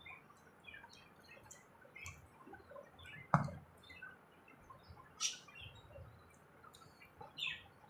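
Eating sounds: faint scattered mouth clicks and smacks while chewing, with one sharper click about three and a half seconds in and smaller ones later.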